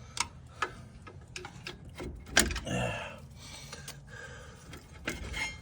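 An old screwdriver used as a pry bar working at a brake caliper: scattered metal clicks and scrapes, with one sharp knock about two and a half seconds in.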